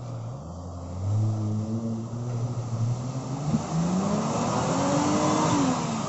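Four-wheel-drive vehicle's engine revving off-road: it gets louder about a second in, climbs in pitch through the middle, and falls away near the end.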